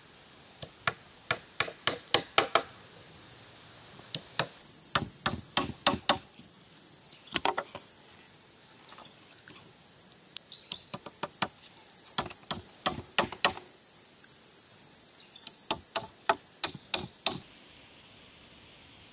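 Bursts of sharp wood-on-wood knocks from a chunk of wood used as a mallet to tap short wooden poles into place, several quick strokes at a time. From about five seconds in, a steady high insect drone and repeated short chirps run behind the knocking, and the background changes abruptly near the end.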